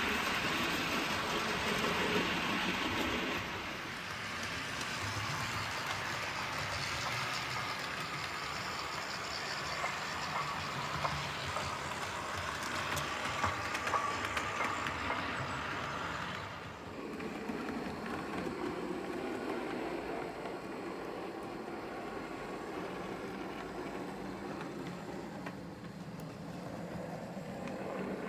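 OO gauge model diesel locomotive running on a layout, a steady train-like running sound that changes character abruptly about four seconds in and again near the middle.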